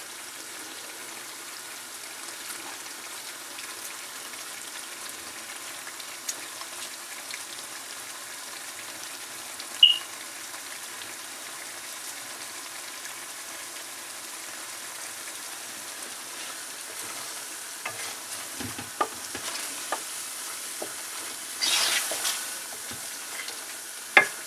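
Lamb karahi masala sizzling in a metal karahi pan on a gas stove as it cooks down, with a spatula stirring and scraping through it. A steady hiss throughout, a brief sharp clink about ten seconds in, and a few knocks of the spatula against the pan with a louder burst of stirring near the end.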